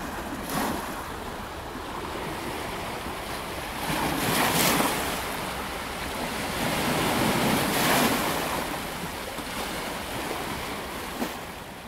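Small waves washing onto a sandy shore, a steady wash that swells twice, about four and eight seconds in, and fades out near the end.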